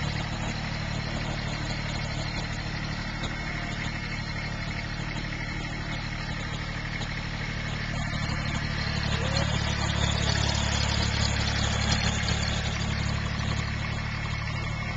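Kubota compact tractor's diesel engine running steadily as the tractor drives across grass, growing louder for a few seconds past the middle.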